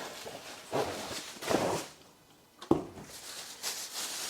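A small tripod being unpacked and handled: short rustles of packaging and a sharp knock a little past halfway.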